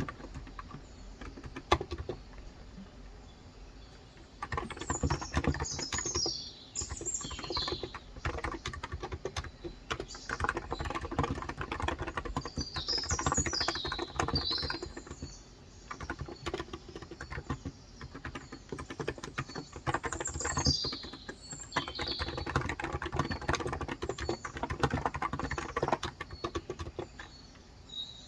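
Typing on a Cox Endeavor electro-capacitive (Topre-style) tenkeyless keyboard with light 35 g switches: quick runs of soft keystrokes in several bursts with short pauses between them. Small birds chirp outside throughout.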